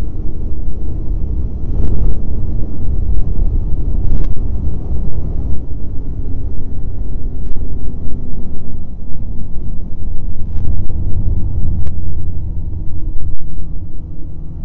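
Snowmobile riding along a snow trail: a loud, steady low rumble of the engine mixed with wind buffeting the microphone, with several brief sharp knocks spread through it.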